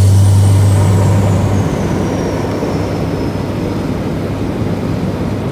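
Truck engine and road noise heard from inside the cab while driving. The engine's low drone eases off about a second and a half in, with a high whine falling in pitch, then a steady road rumble.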